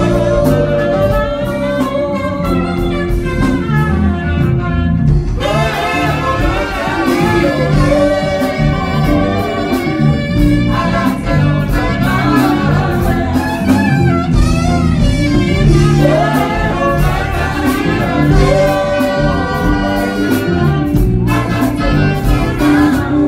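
Two saxophones playing a jazz-gospel melody together live, with sliding, vibrato-laden phrases over a steady bass and drum accompaniment.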